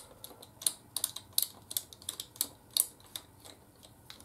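Ratchet wrench clicking in quick, irregular strokes, several clicks a second, as a 13 mm nut is run onto an exhaust stud of a Kawasaki Vulcan 1500's cylinder head. The clicks thin out after about three seconds.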